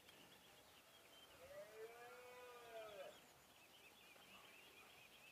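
A distant red deer stag roaring once in the rut: a single faint call of under two seconds that rises and falls in pitch. It sounds over a steady high chirring of insects.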